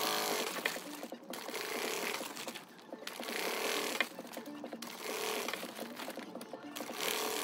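Flatbed sewing machine stitching a seam through two layers of fabric, running in about five short spurts with brief stops in between while the fabric is guided along.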